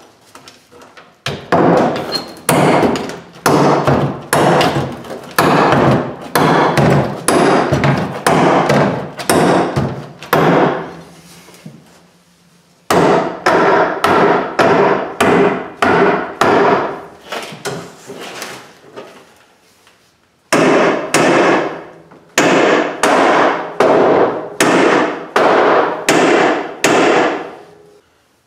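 Short-handled sledge hammer striking repeatedly to knock a roll cage's main hoop into place, about one and a half blows a second, each with a ringing decay. The blows come in three runs, with short pauses about a third and two thirds of the way through.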